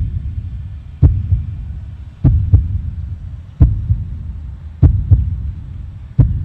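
A heartbeat-like pattern of paired low thumps, five in all, roughly one pair every 1.25 seconds, each fading into a low hum before the next.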